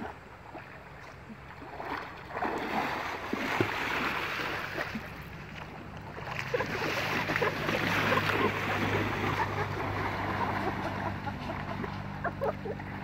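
Water splashing and churning as people thrash and swim in a river, in two long bouts, the second starting about halfway through. A low steady hum sets in under the splashing later on.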